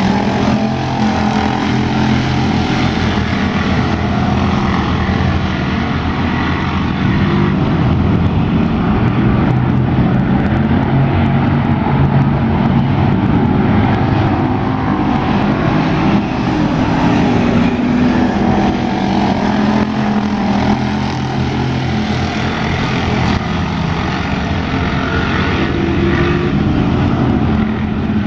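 Several street stock race car engines running together, a loud continuous drone whose pitch rises and falls slightly as the cars circle the track.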